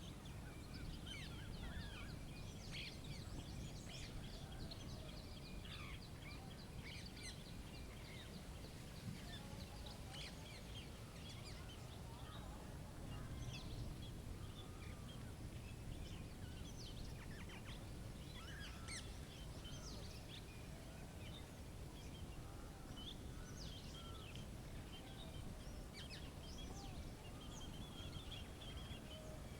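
Many small birds chirping, short high calls scattered throughout over a steady low outdoor rumble.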